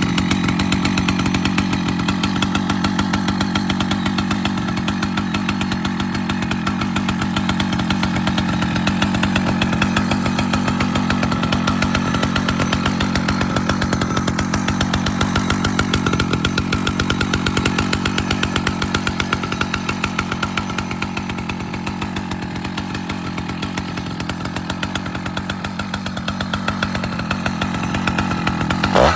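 Husqvarna 2100-series two-stroke chainsaw engine running at a steady speed.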